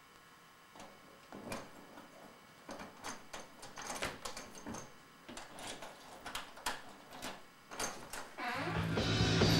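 Irregular light clicks and knocks, several a second at times, then music swelling in near the end.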